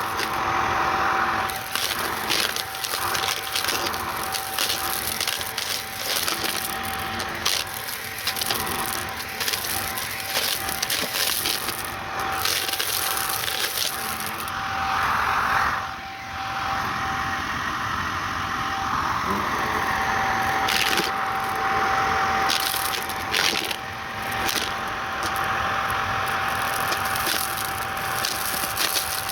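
Shark vacuum cleaner running with a steady motor whine while gritty debris crackles and crunches as it is sucked up, the crackle thinning out and thickening again.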